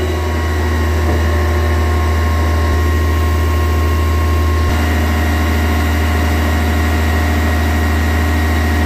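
Tadano GT-600EX truck crane's single diesel engine held at steady raised revs, driving the hydraulic pump through the PTO to lower the four outrigger jacks.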